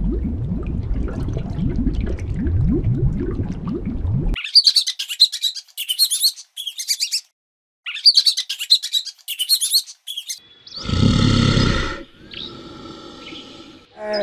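Animal sounds in succession. First a rapid series of low, falling calls for about four seconds. Then birds chirping in quick high bursts for about five seconds. Near the end comes a short, loud call from a larger animal.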